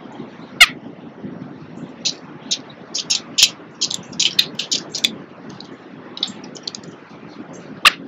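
Backyard birds calling: a loud, sharp call sliding steeply down in pitch about half a second in and again near the end, with a quick run of short high chirps in between, over a steady low background noise.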